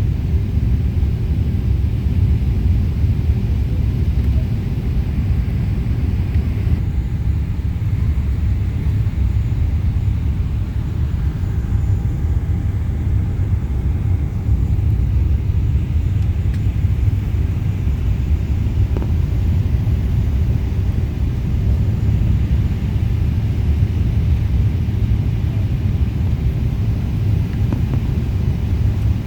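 Steady low rumble of jet airliner cabin noise, engines and airflow heard from inside the cabin during the descent to land.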